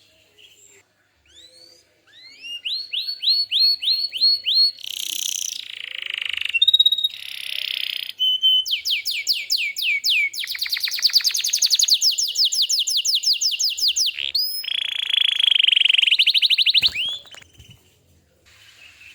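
Domestic canary singing a long, loud song made of runs of repeated rising notes and rapid trills. It starts about two seconds in and breaks off near the end.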